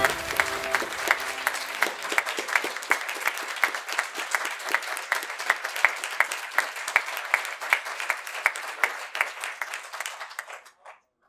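A roomful of people applauding, with sharp individual hand claps standing out; the applause dies away near the end.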